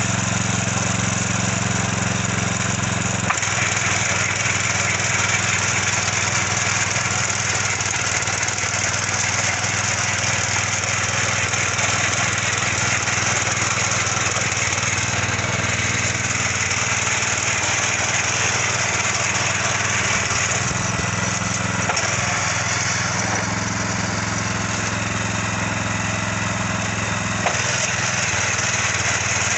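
Mini tiller's small petrol engine running under load while its rotary tines churn hard, previously untilled soil. A steady engine hum whose pitch shifts a few times, over a dense grinding noise.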